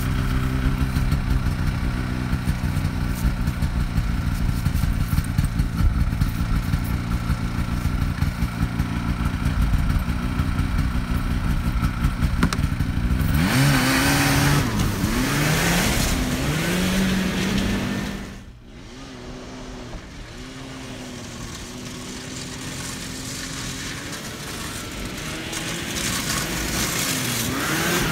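1979 Ski-Doo Everest 500 snowmobile's 500cc Rotax two-cylinder two-stroke engine idling steadily, then revving up and down as the sled pulls away about 13 seconds in. After a sudden drop in level the engine runs fainter and grows louder again near the end as the sled is ridden back with the throttle open.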